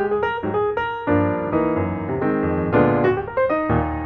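Background piano music: a run of quick notes over low chords.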